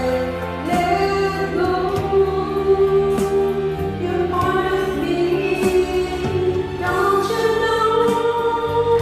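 Karaoke singing over a backing track: a voice holds long sustained notes that change pitch every second or so, with a slight waver on the last held note.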